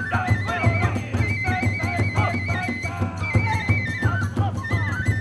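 Hiroshima kagura accompaniment: a high bamboo flute playing a held, stepping melody over a fast, steady beat of taiko drums.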